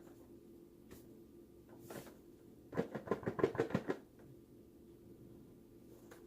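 Smartwatch box packaging being handled: one short rustle about two seconds in, then a quick flurry of clicks and scrapes lasting about a second, over a faint steady hum.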